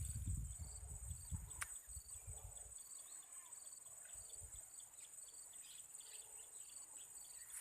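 Insects chirping: a steady high-pitched drone with a short chirp repeating about twice a second. Low rumbling on the microphone in the first second.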